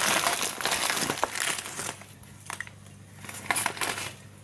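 Clear plastic bag crinkling and rustling as dried herbs are taken out of it. It is loudest for the first second or so, then there are a few light clicks, and another short burst of crinkling comes a little over three seconds in.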